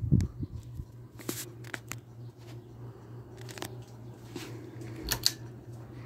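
A 1987 Alaska 42-inch ceiling fan running, its motor giving a steady low hum, with scattered sharp clicks and crackles over it, the loudest about five seconds in.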